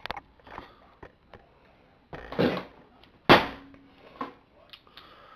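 Scattered clicks and knocks of a wrench working on the coil mounting bolts of a Briggs & Stratton mower engine, the loudest a sharp knock about three seconds in.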